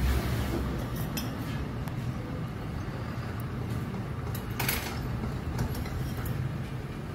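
Diesel engine of a MAN TGM 18.290 recycling truck running with a steady low rumble, with a few short sharp clinks or knocks, the clearest about four and a half seconds in.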